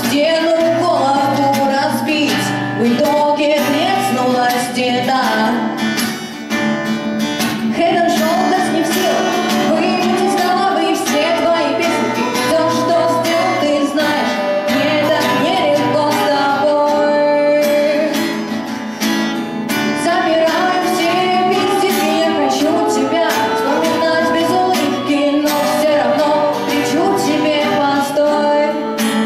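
Live song: a young woman's voice singing over a strummed acoustic guitar.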